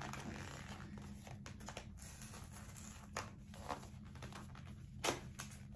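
Light rustling and scraping of a cardboard tights package being handled and turned over, with a few soft taps, the loudest a little before the end. A steady low hum runs underneath.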